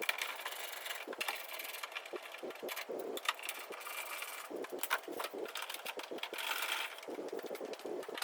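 Irregular clicking and rattling of hand work taking a car's rear bumper off, many small sharp clicks in quick succession.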